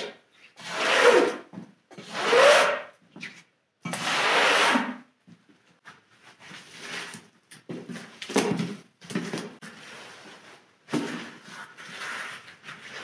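Long-handled brush scrubbing a wet rug on a concrete floor in three loud, long strokes over the first five seconds. After that come quieter, irregular rustles and scrapes as the wet rug is handled and rolled up by gloved hands.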